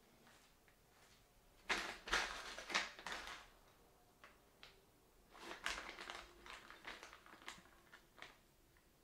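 Rustling and small knocks of a new ceiling light fixture being handled and taken out of its packaging, in two spells: one about two seconds in, the other from just past the middle to near the end.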